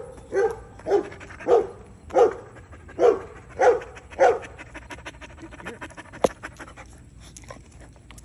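A dog barking seven times in an even series, then falling silent about four and a half seconds in; a single sharp click follows a little later.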